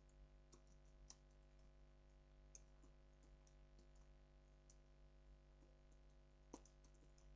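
Faint, irregular computer keyboard key clicks from typing, one a little louder near the end, over a steady low electrical hum.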